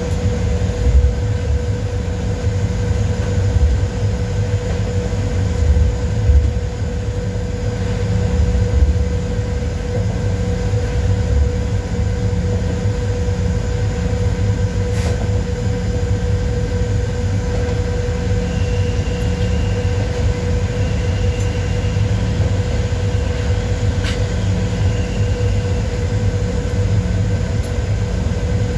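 Running noise inside the cab of a PKP Cargo ET22 electric locomotive hauling a freight train: a steady low rumble with a constant hum. Two sharp clicks come about halfway through and again later.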